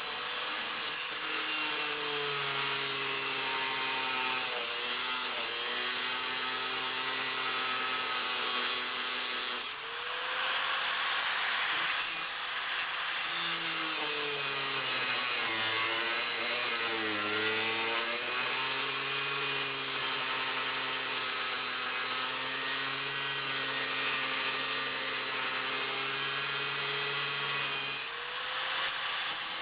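Angle grinder with a grinding wheel cutting into the hardened steel of a Kryptonite U-lock, the grinding hiss over the motor's tone. The motor's pitch sags as the wheel bites into the steel and climbs back when the pressure eases, several times, most deeply about halfway through.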